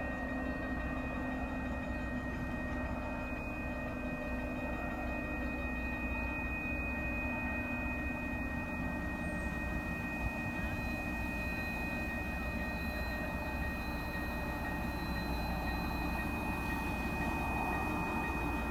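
Steady high-pitched ringing in two tones with a lower hum that fades out about a third of the way in: the rails singing as an approaching commuter train nears the station.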